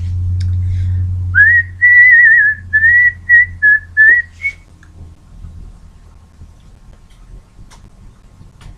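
A person whistling a short tune of several wavering notes for about three seconds, starting a little over a second in. A low steady hum fades away under the start of the whistling.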